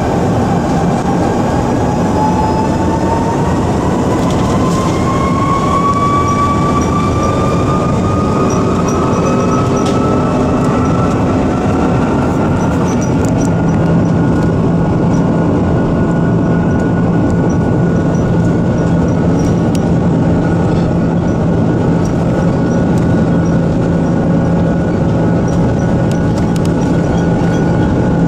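Airbus A330-300 heard from inside the cabin over the wing as its Rolls-Royce Trent 700 engines spool up for takeoff: a whine rising in pitch over the first several seconds, then a steady loud engine drone. Under it is a continuous rumble of the wheels rolling on the runway.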